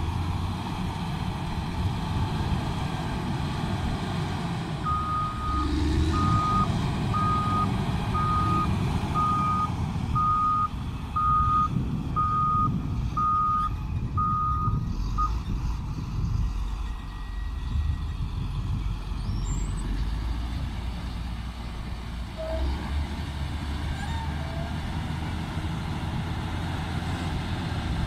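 Cat 120K motor grader's diesel engine running under load, with its reversing alarm beeping about a dozen times at roughly one beep a second as it backs up; the beeps stop about halfway through while the engine runs on.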